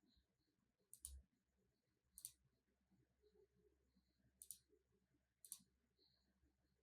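Fantech MK853 mechanical keyboard with red linear switches, keys pressed one at a time: four faint, sharp keystroke clicks at uneven intervals about a second or two apart.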